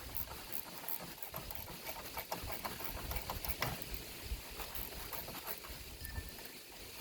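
Irregular light clicks and taps over a faint steady hiss, like small objects being handled.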